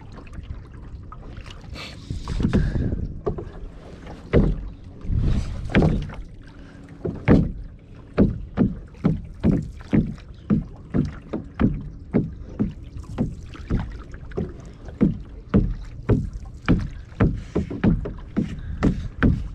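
Canoe paddling: paddle strokes in the water, irregular at first, settling into a steady rhythm of about two strokes a second from about eight seconds in.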